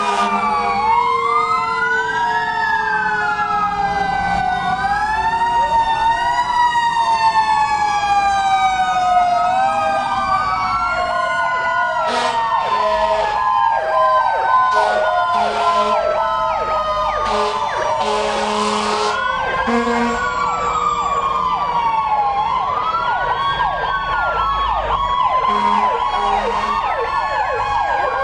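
Several fire truck sirens wailing at once, their pitches rising and falling out of step, with a fast back-and-forth yelping siren joining in midway and again near the end. A run of short, loud air-horn blasts sounds between about 12 and 20 seconds in.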